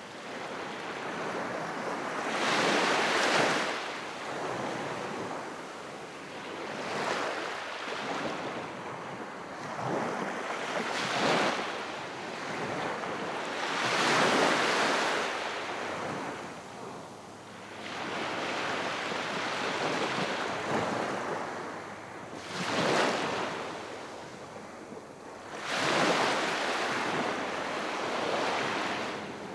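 Gentle sea surf: small waves breaking and washing up the shore, swelling and falling back in a surge every three to four seconds.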